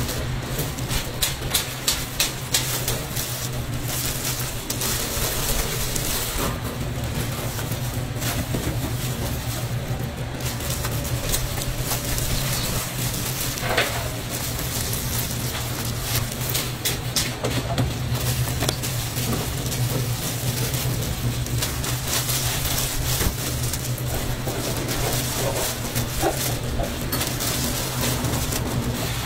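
Food-stall ambience: a steady low hum with scattered crinkles and clicks from plastic-gloved hands handling fried bread rolls, shredded cabbage and trays.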